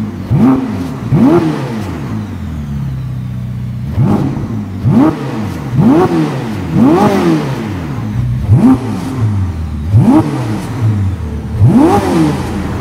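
Ferrari SF90 Stradale's 4.0-litre V8 idling and being blipped in quick free revs, about nine short rises and falls in pitch, with a steady idle between them and a longer idle pause of about two seconds after the first two blips.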